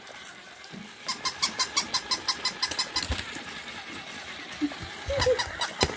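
Motorized plush toy dog's mechanism running with a rapid, even clicking whir of about five clicks a second. It fades about halfway and picks up again near the end, with a few soft knocks.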